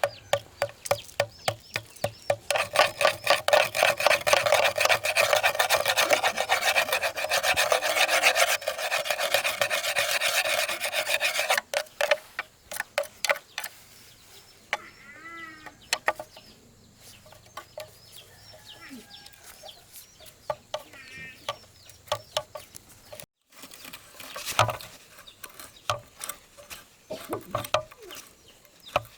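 Rapid, rhythmic hand scraping or rubbing strokes on a part, loud and continuous for about nine seconds, then breaking off into scattered light knocks and clicks.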